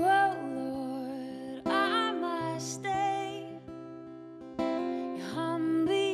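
Slow worship song played live: an acoustic guitar strumming chords every second or two, with a voice singing drawn-out notes over it.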